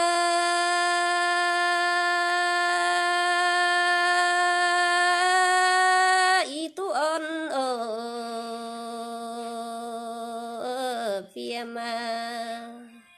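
A solo voice singing a Red Dao folk song in long drawn-out notes: one note held for about six seconds, then a wavering slide down to a lower note, held with a brief dip before it fades out near the end.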